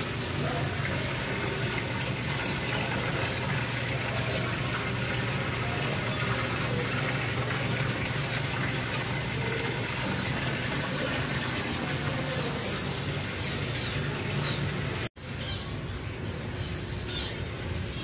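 Water falling and splashing steadily down an artificial rock waterfall, with scattered small-bird chirps over it. About fifteen seconds in the sound cuts off abruptly, and a quieter background with more bird chirps follows.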